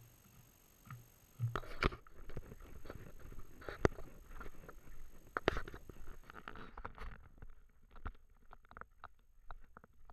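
Footsteps on a gravel and dirt footpath, with irregular clicks, knocks and rustles from a carried camera and rucksack.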